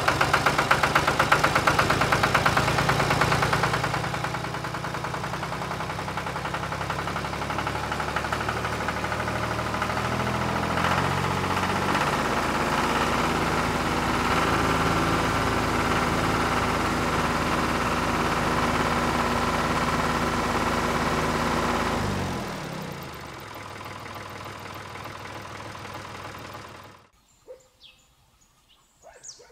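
Miniature home-made tractor's motor running with a rattling knock. It is loudest for the first few seconds, then runs steadily. About two-thirds of the way through it winds down in pitch and drops in level, then cuts out near the end, leaving only a few faint clicks.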